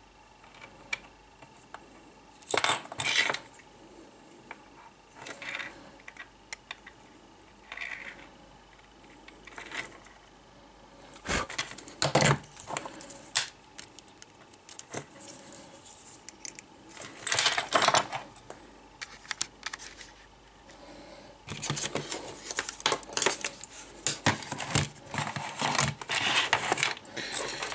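Small metal tools and parts clinking and rattling in short, irregular bursts while a MOSFET transistor is swapped out of an e-bike motor controller. The clatter grows busier near the end.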